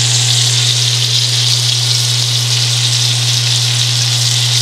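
Battered fish pieces frying in oil in a cast-iron skillet: a steady sizzle, with a steady low hum underneath.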